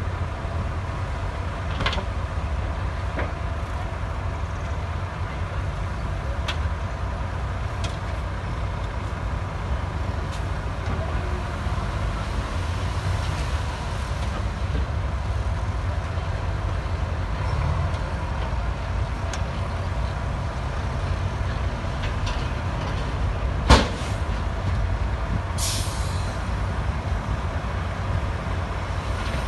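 Heavy diesel earthmoving machinery running steadily with a low rumble and occasional light clanks. About 24 s in there is one sharp, loud bang, followed a couple of seconds later by a short hiss of air.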